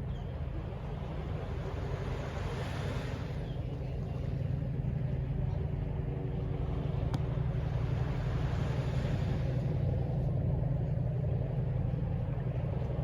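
Steady low rumble of distant city traffic, swelling twice as vehicles pass.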